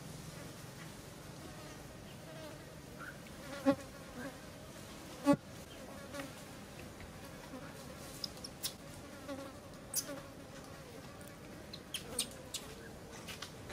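A fly buzzing around, with two short sharp sounds about four and five seconds in and scattered light clicks later on.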